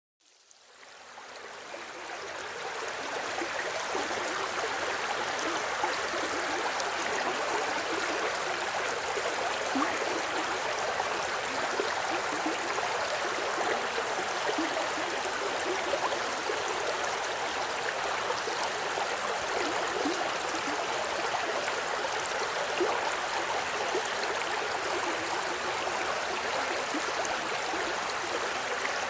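Stream of water flowing steadily, an even rushing with small gurgles, fading in over the first few seconds.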